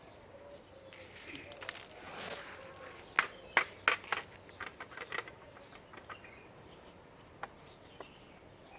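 Rustling, then a run of sharp plastic clicks and taps, the loudest in a cluster about three to five seconds in: a robot vacuum's dustbin being opened and knocked to empty out the collected dust.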